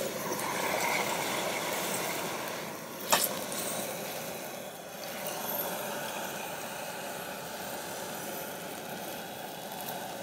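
High-pressure propane wok burner (100,000 BTU jet burner) running turned up high, a steady rushing hiss of gas and flame. One sharp click about three seconds in.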